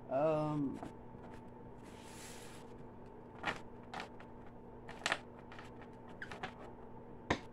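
Tarot cards handled on a wooden table: a brief sliding, shuffling hiss about two seconds in, then several light taps and clicks of cards and deck set down. A short falling voice sound, like a hum, comes right at the start, and a faint steady hum runs underneath.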